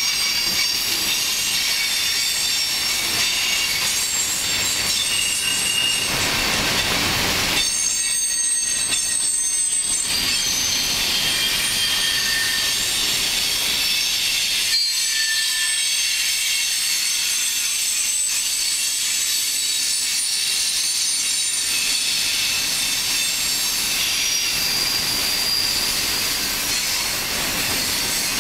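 Freight cars of a CN train rolling steadily past, wheels and rails running with a high-pitched squeal that shifts in pitch as the cars go by.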